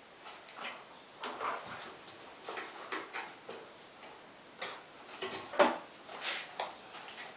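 Irregular clicks and light knocks of hand tools and metal parts being handled during washing-machine repair work, the loudest a sharp knock a little over halfway through.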